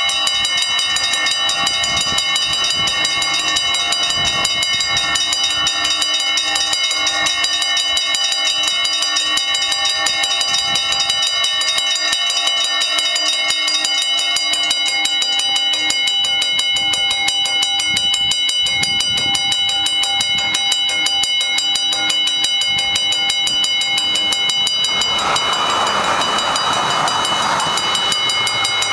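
Level crossing warning bell ringing rapidly and without a break while the barriers are down. About 25 seconds in, a loud rushing noise from a passing HTM tram joins it for a few seconds.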